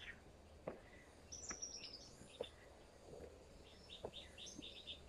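Faint woodland birdsong: a quick falling run of high notes in the first half, then a rapid series of short chirps, about five a second, near the end. A few faint footsteps on the dirt trail are heard as light ticks.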